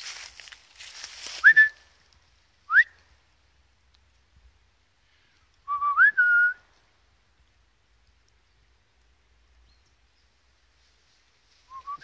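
A person whistling to call a dog: two short upward-sliding whistles about a second apart, then a longer whistle about six seconds in that slides up and settles on a slightly lower held note, with another starting near the end. At the start, footsteps rustle through dry fallen leaves.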